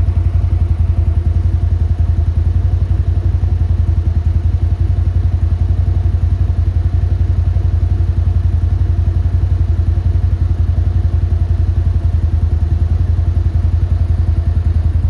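New Holland CX8.70 combine harvester's diesel engine running steadily: a loud, deep, even drone with a fast pulse.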